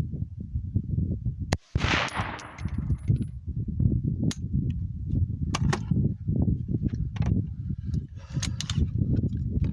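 A 6.5 Creedmoor rifle shot about one and a half seconds in, loud, with a long echoing tail. It is followed by several fainter sharp cracks and a constant low rumble.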